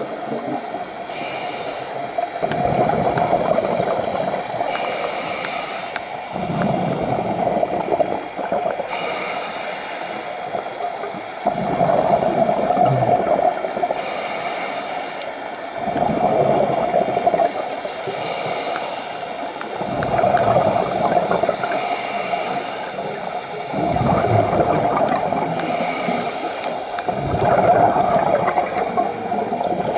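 Scuba regulator breathing recorded underwater: a short hiss on each inhale, then a longer stretch of bubbling as the breath is exhaled, about one breath every four seconds.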